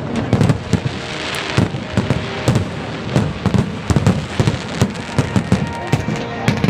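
Fireworks going off in a rapid, irregular barrage of sharp bangs over a continuous crackle, with a brief hissing swell about a second in.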